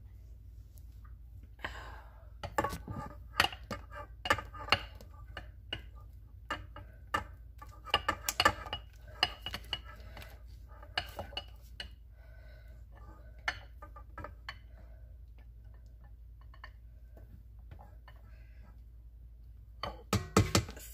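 Spatula scraping and knocking against a glass bowl and a stainless steel mixing bowl as lemon custard is scraped out into meringue: a busy run of clicks and clinks in the first half, sparser later, and a few sharper knocks near the end.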